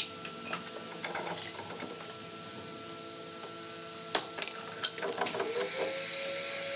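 Sharp knocks of a hammer on the hardwood frame, a few at the start and a quick cluster a little past the middle. Then an electric power tool's motor starts with a short rising whine and runs steadily.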